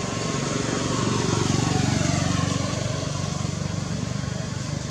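A motor vehicle passing by: a low engine rumble that swells to its loudest about two seconds in and then fades, its pitch falling as it goes past.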